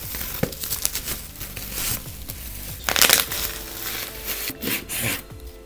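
Plastic bubble wrap and packaging crinkling and crackling as an item is unwrapped by hand, with a louder crackle about three seconds in.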